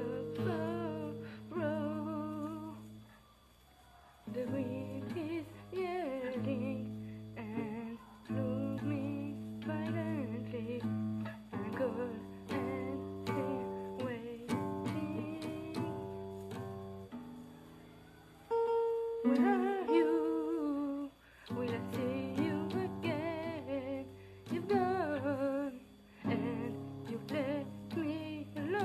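Classical guitar fingerpicked in a slow song, with a woman's voice humming the melody over it in phrases, pausing briefly between them.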